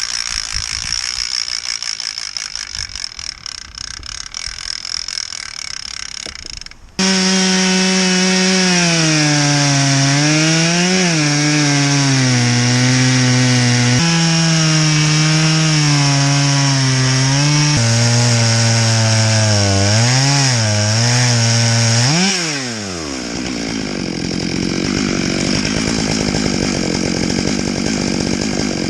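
Two-stroke chainsaw on a chainsaw mill, ripping a box elder log lengthwise into slabs: the engine runs at full throttle under load, its pitch sagging and recovering as the chain bites. It jumps suddenly louder about seven seconds in, and its pitch drops off near the end, leaving a rougher, noisier cutting sound.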